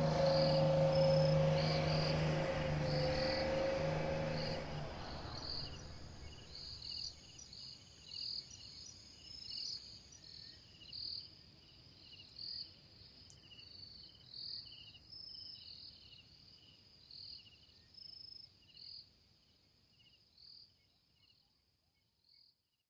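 Background music fading out over the first five seconds, leaving a nature ambience of crickets chirping: repeated short high chirps that slowly fade away near the end.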